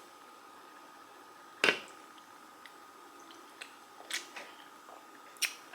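A person drinking from a can of soda: a few small clicks and mouth sounds, the sharpest about one and a half seconds in, over quiet room tone with a faint steady whine.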